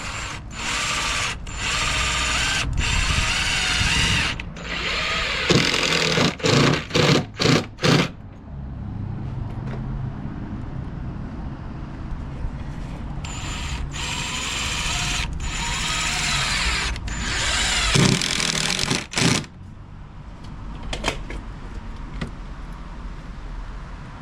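Power drill driving screws into deck boards: several long runs of the motor at full speed, with a quick series of short trigger bursts about six to eight seconds in as a screw is seated.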